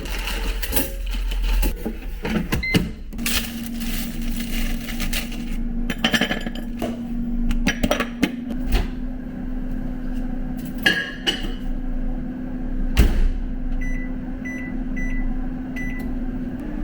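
Air fryer running: its fan hums steadily from about three seconds in, amid scattered clicks and knocks of handling. A quick run of short electronic beeps comes near the end.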